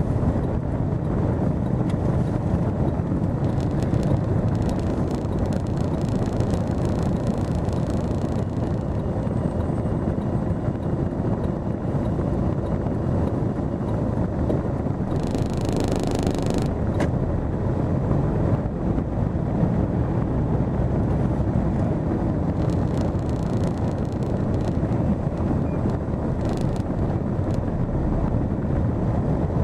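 Steady low rumble of a car's engine and tyres heard from inside the moving car, with a short hiss about halfway through.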